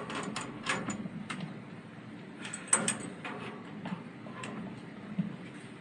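Scattered light clicks and clunks of hands working on a sheet-metal access door of a water source heat pump, the sharpest knock about three seconds in.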